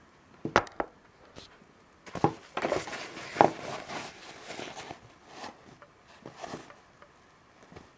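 A black fabric drawstring pouch knocks twice against a wooden table as it is set down. This is followed by a few seconds of fabric rustling and handling as hands loosen the drawstring, then smaller handling noises.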